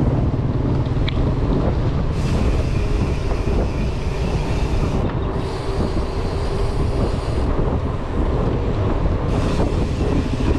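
Trek Marlin 7 mountain bike riding at pace over a cracked concrete road: a loud, steady low rush of tyre noise and wind buffeting the microphone, with no break.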